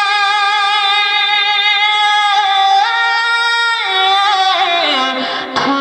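A man singing a Bengali Islamic gojol into a microphone, holding one long high note. The note steps up in pitch about two and a half seconds in, drops back, then slides down near the end.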